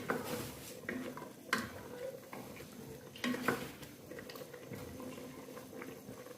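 Spoon or ladle stirring meat in a metal cooking pot, with scraping and a few sharp knocks against the pot, the loudest about a second and a half in and about three and a half seconds in.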